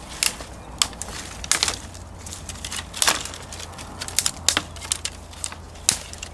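Small dry twigs and dead sticks snapping as they are broken up for fire kindling: a dozen or so sharp, irregular cracks.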